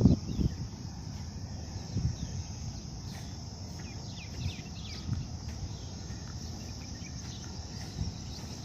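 Outdoor insect chorus: a steady high-pitched buzz, with scattered short bird chirps and a few soft low thuds.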